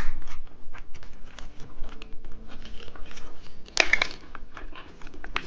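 Plastic candy wrapper crinkling and tearing as it is opened by hand: a run of small crackles, with a louder tearing rasp a little before the end.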